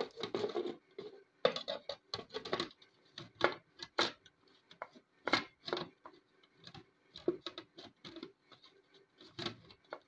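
Clear plastic lid being set on a food processor bowl and twisted into place: an irregular string of plastic clicks and knocks.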